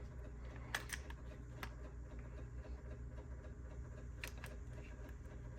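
A few light clicks and taps from pistols being handled, over a low steady hum: two close together about a second in, another soon after, and one more near the end.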